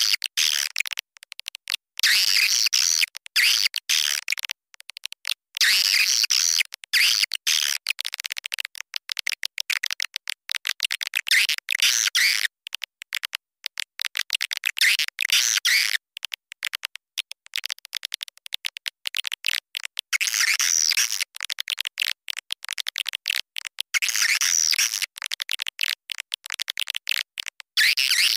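Edible-nest swiftlet calling sound, played as a lure for swiftlets: dense, high-pitched twittering chatter that swells in bouts about every two seconds and is chopped by many short gaps.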